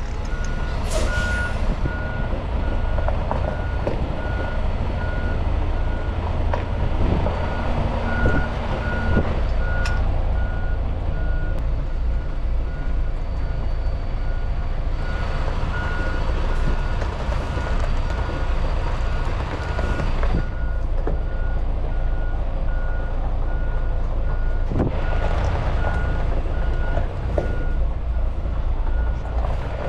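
Semi truck reversing: its backup alarm beeps over and over above the steady low rumble of the diesel engine, with two longer stretches of hissing, one about halfway through and one near the end.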